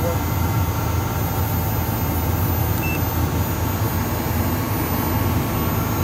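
12 V DC geothermal heat-pump air conditioner running with a steady low hum.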